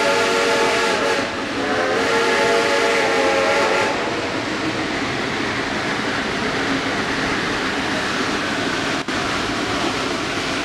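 Steam locomotive's whistle blowing twice: a blast that stops about a second in, then a second blast of about two seconds. After it, the steady noise of the train running.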